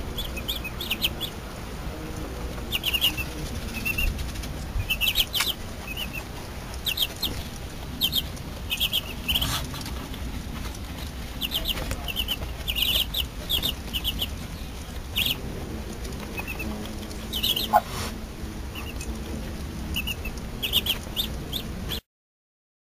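Muscovy ducklings peeping: short, high-pitched peeps in quick runs of two to four, over and over, cutting off near the end.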